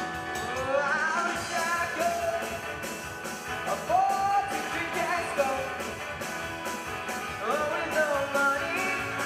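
A live acoustic folk-rock band playing a song, with accordion, acoustic guitar, double bass, keyboard and a drum kit keeping a steady beat. A melody line glides up and down above the band.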